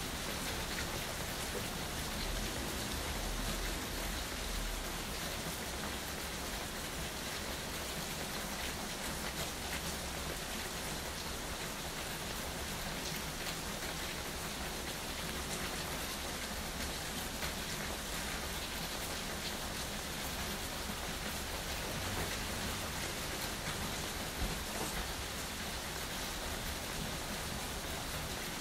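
Steady rain falling, with the taps of individual drops on surfaces audible through the continuous hiss.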